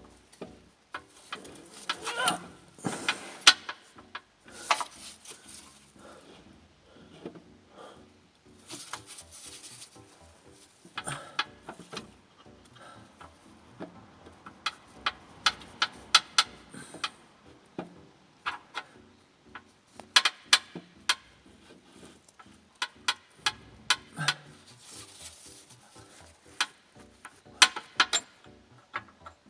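Irregular metallic clicks, knocks and scraping as an alternator is worked by hand against its mounting brackets and engine parts while being fitted back into place.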